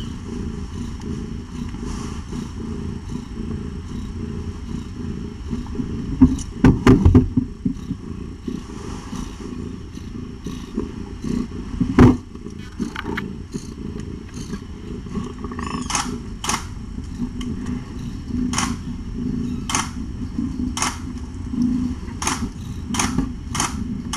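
Calico mother cat purring while nursing her kittens: a steady low rumble that swells and eases. Loud knocks come about six to seven seconds in and again around twelve seconds, and a run of sharp clicks follows in the last third.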